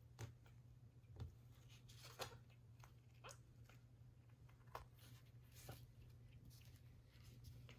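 Near silence: quiet room tone with a steady low hum, broken by faint, scattered soft clicks and rustles.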